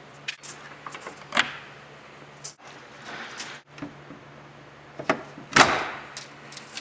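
Metal knocks and clunks as a steel cantilever bracket is fitted into the slotted upright of an office panel. The loudest knock comes about five and a half seconds in. A faint steady hum runs underneath.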